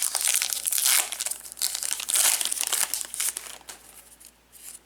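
Foil wrapper of a 2019 Bowman Platinum baseball card pack crinkling as it is torn open and handled. The crackling fades out near the end.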